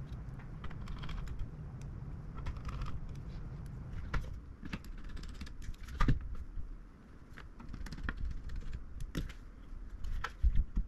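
Irregular light clicks and taps from hands working on a graphics card's small hardware parts, with a sharper knock about six seconds in and a couple more near the end.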